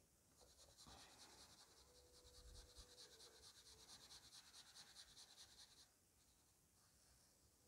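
Faint scratching of a broad-tipped Faber-Castell marker rubbing back and forth on watercolour paper in quick, even strokes, filling in a solid black area. It stops about six seconds in.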